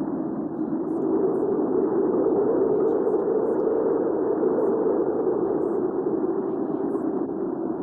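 Recorded hurricane wind ambience: a steady, muffled rushing of wind that swells a little about a second in.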